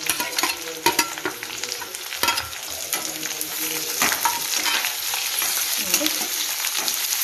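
Sliced onions sizzling as they hit hot oil in a steel kadai, with sharp clinks and scrapes of a steel spoon on steel as they are pushed in and stirred. The sizzle grows fuller and steadier about halfway through.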